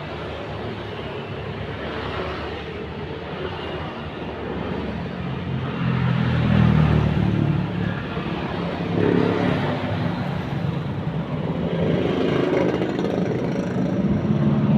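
Motor vehicle engines running, a steady hum that swells about halfway through and again near the end, like vehicles passing on a nearby road.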